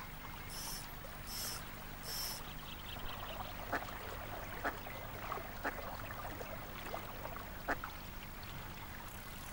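River water flowing steadily. Four short high-pitched sounds come about a second apart near the start, and a few sharp clicks follow later.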